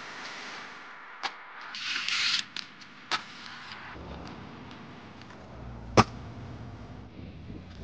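Aggressive inline skates on metal handrails: a few sharp clacks, a short hissing grind about two seconds in, and a loud single clack of a skate hitting a rail about six seconds in. A low rumble from handling or wind on the camera microphone runs through the second half.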